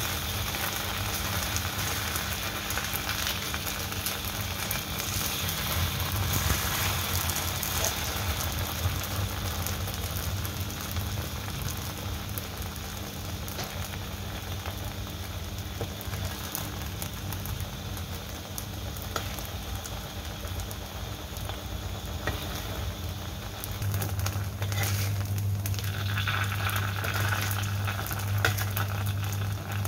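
Slices of Chinese New Year cake sizzling and crackling as they pan-fry in oil in a wok, with a spatula scraping and clicking against the wok in the last few seconds as the slices are turned. A steady low hum runs underneath and grows louder near the end.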